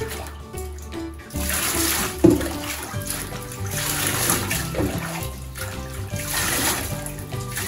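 Water pouring over a wet cat held in a bathtub, splashing and running off into the bathwater, starting about a second in. Background music with sustained notes plays under it.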